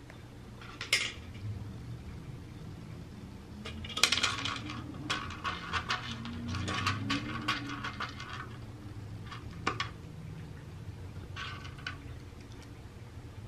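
Dry cat kibble clattering against the hard plastic of a Catit Senses 2.0 Food Tree slow feeder as a cat paws and noses the pieces out. A run of quick clicks and rattles from about four to eight seconds in, with a single sharp click before it and a few more after.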